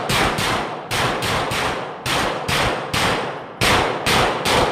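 Iron City Rifle Works PCC9 Berserker 9, a 9mm pistol-caliber carbine, firing about a dozen rapid shots in quick pairs and threes. Each crack echoes off the concrete walls of an indoor range.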